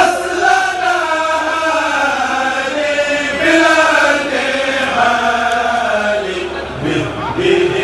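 A group of men chanting religious verses together from books, with long held notes that rise and fall, amplified through microphones.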